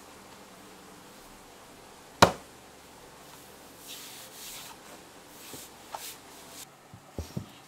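Laminate floor planks being handled and set into place on plastic underlayment: one sharp knock about two seconds in, then hands rubbing and sliding over the planks, and a few soft knocks and low thuds near the end.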